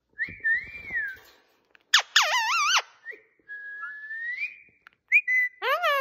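Indian ringneck parakeet whistling and calling: a short rising-and-falling whistle, a loud warbling call about two seconds in, a long rising whistle near the middle, and a quick note followed by a downward-swooping call near the end.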